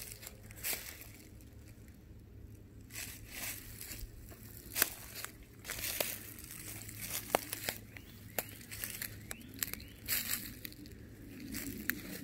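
Footsteps crunching through dry leaf litter and twigs on a forest floor, an irregular walking pace with a few sharper cracks mixed in.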